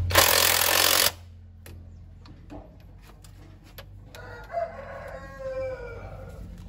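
A loud burst of hissing noise lasting about a second, then faint clicks, then a rooster crowing once in one long call that falls in pitch at the end.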